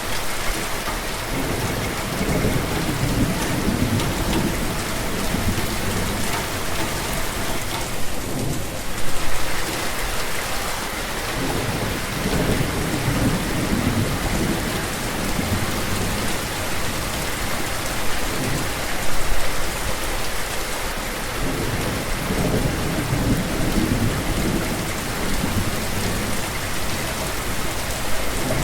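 Steady heavy rain falling, with low rumbles that swell and fade several times, like rolling thunder.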